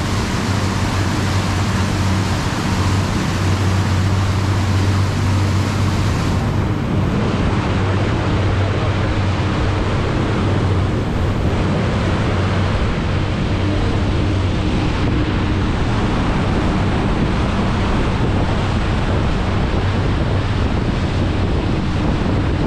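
Fishing boat's engine running steadily under way with a low hum, over the rush of the churning wake and some wind on the microphone.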